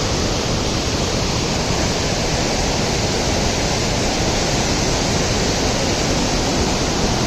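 Waterfall pouring: a steady, even rush of falling water that does not change in level.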